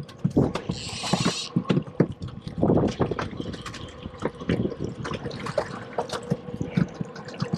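Water splashing and dripping, with irregular knocks and thumps and a short hiss about a second in.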